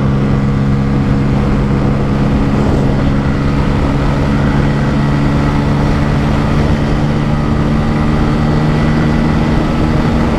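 Bajaj Pulsar N160's single-cylinder engine running hard at high revs in fifth gear near its top speed, holding a steady pitch. A low rumble of wind rushes over the microphone.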